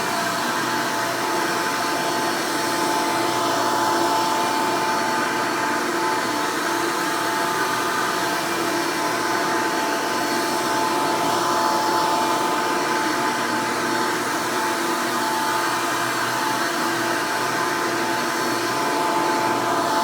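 Hoover Elite direct-air upright vacuum cleaner running steadily and smoothly: an even whir of motor and airflow with a high steady whine, swelling slightly in loudness a few times.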